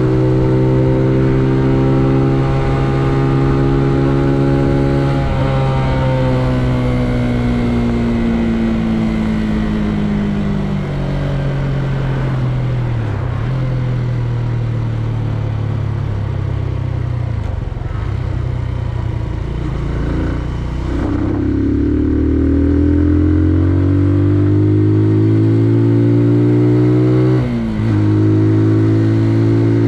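Benelli Leoncino 125's single-cylinder four-stroke engine running under way. It holds a steady pitch, drops off about five seconds in and falls slowly in pitch for several seconds as the bike slows. It then climbs in pitch again under acceleration, with a brief dip near the end like a gear change before it settles steady.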